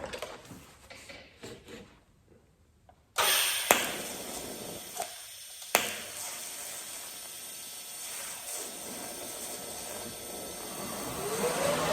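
TIG welding arc from a Miller TIG welder, fusing a bolt end into an aircraft push-rod tube. The arc strikes suddenly about three seconds in, with a couple of sharp cracks. It then runs as a steady hiss and cuts off abruptly at the end. Faint handling clicks come before it.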